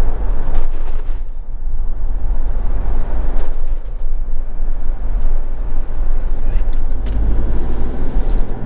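Motorhome being driven along a road: steady low engine and road rumble, with a few brief knocks.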